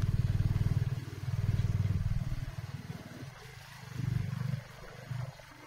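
A vehicle engine running with a low, rapid throb that swells and fades several times, then drops away near the end.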